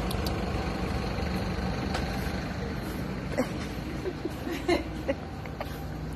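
Steady low rumble and hum of background noise, with a few short, sharp high sounds between about three and five seconds in.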